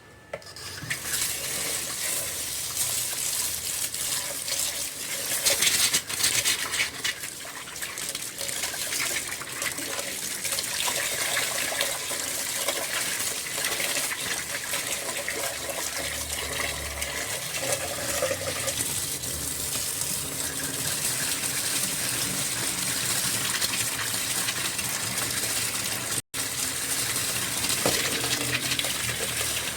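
Tap water running and splashing into a container, with small clinks mixed in.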